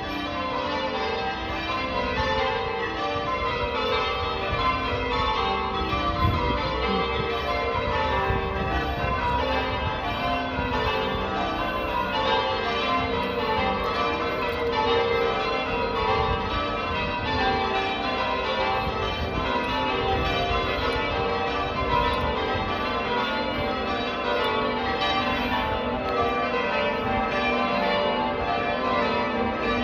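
Church bells being rung in changes: the bells strike one after another in quick, continuous falling runs, their tones overlapping as each rings on.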